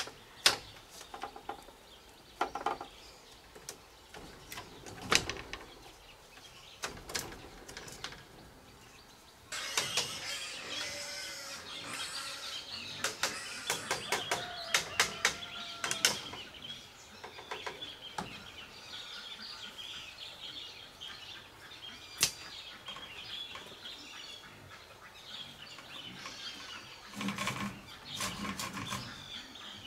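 Sharp knocks and clatter of split bamboo slats being handled and fixed onto a bamboo chicken coop wall. Birds chirp from about a third of the way in.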